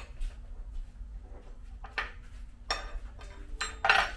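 Steel spanners clinking and clattering against each other as they are picked up and set down, a handful of sharp metallic clinks with a short ring, the loudest near the end.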